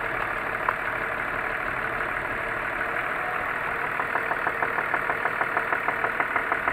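BMW M54 straight-six engine idling with its third cylinder disconnected. About four seconds in, a regular ticking knock sets in at roughly six a second; the owner places the knock somewhere around the third cylinder.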